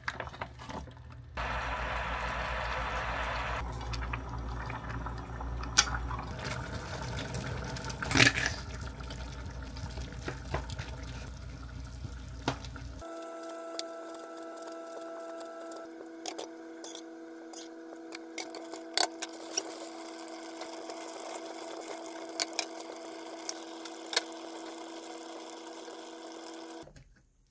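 Kitchen cooking sounds: thick sauce poured and squeezed from a plastic pouch into a pot, with wet sloshing. Then metal tongs clicking and scraping in a plastic bowl as rice is mixed, over a steady hum.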